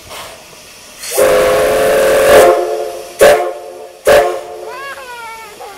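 C11 steam locomotive's whistle sounding a chord: one long blast of about a second and a half, then two short blasts about a second apart, with steam hissing in between.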